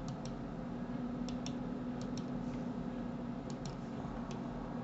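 Computer mouse being clicked: about four left-button clicks, most heard as a quick press-and-release pair of ticks, over a steady low hum.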